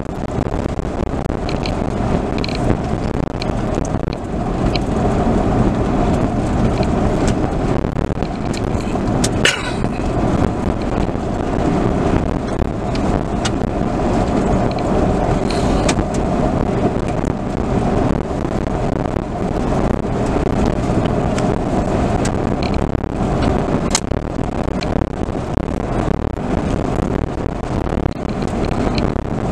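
Car driving along a gravel road, heard from inside the cabin: steady road and tyre noise with scattered small ticks, and one brief sharper click about nine seconds in.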